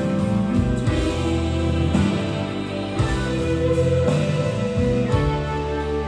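Live rock band playing: electric guitars over keyboards and a drum kit, with a drum or cymbal hit about once a second.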